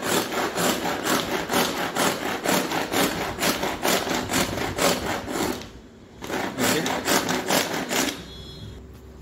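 Pull-cord manual vegetable chopper (Pigeon Handy Chopper) worked in rapid, rhythmic pulls: the cord rasps out of the lid and winds back while the blades spin through onion and green chilli in the plastic bowl. There is a short break about six seconds in, and the pulling stops about eight seconds in.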